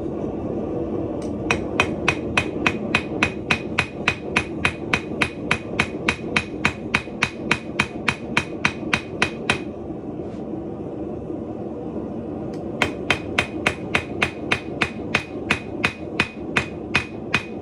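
Hammer blows on hot stainless steel rod on an anvil, drawing its round end into a square: quick, even strikes, about four a second, each with a short metallic ring. The blows stop for about three seconds midway, then resume, over a steady rushing noise.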